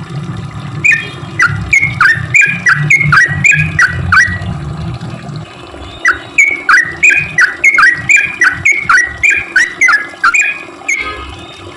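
Yellow-vented bulbul (trucukan) singing its bubbly chattering song: two fast runs of sharp, downward-slurred notes with a short pause between them. A low rumble sits under the first half.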